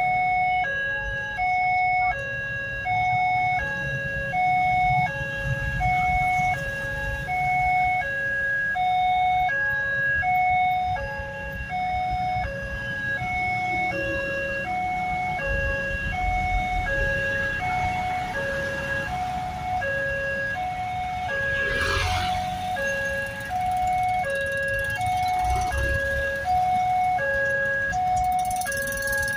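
Railway level-crossing warning alarm sounding a repeating two-tone electronic chime, alternating high and low notes about once a second, the signal that a train is approaching and the crossing is closing. Motorcycle and truck engines rumble underneath, with a brief whoosh of noise about two-thirds of the way through.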